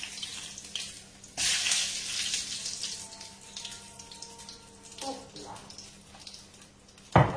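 Zucchini slices dipped in beaten egg frying in hot oil in a pan: a hissing sizzle that swells loudly about a second and a half in as pieces are moved and lifted out, then dies down. A sharp knock comes near the end.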